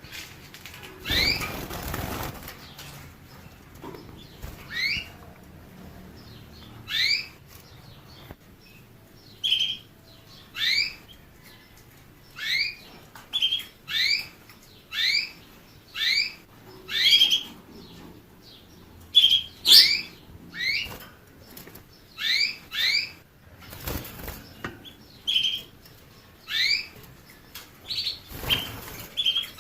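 Canary giving short rising chirps, roughly one a second, with a few brief bursts of wing flapping.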